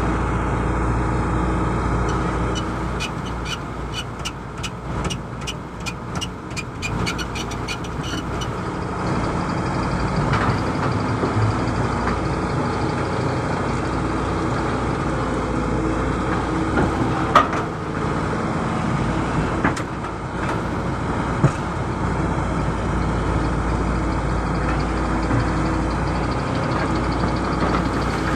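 Excavator diesel engine running steadily while digging. A run of rapid clicks comes a few seconds in, and two sharp knocks come later on.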